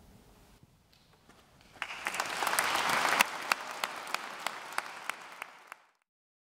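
Audience applauding in a reverberant church, starting about two seconds in after a short hush, swelling quickly, then thinning to scattered claps. It cuts off suddenly near the end.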